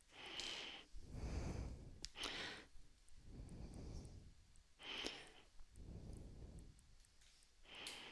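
Faint breathing close to the microphone: about four slow breaths in and out, one every two and a half seconds or so.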